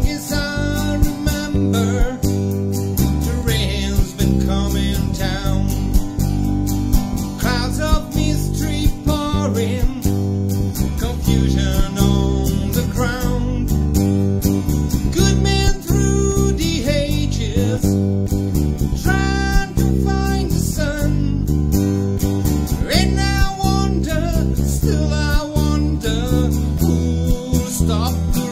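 A man singing over an acoustic guitar and an acoustic bass guitar playing together, in a blues-tinged groove.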